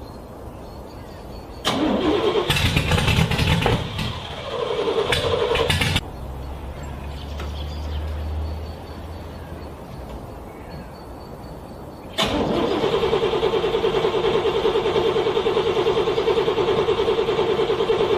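Cold car engine being cranked by its starter as it struggles to start in freezing weather: a cranking attempt begins about two seconds in and cuts off suddenly about four seconds later, then after a pause a second, steady, rapidly pulsing cranking run starts near the end and keeps going.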